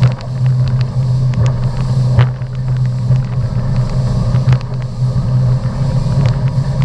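Motorboat engine running at speed, a steady low drone, with scattered short sharp knocks and wind noise on the microphone.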